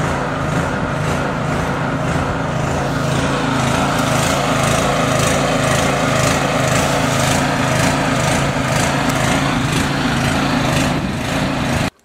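An engine running steadily at a constant speed, cutting off suddenly near the end.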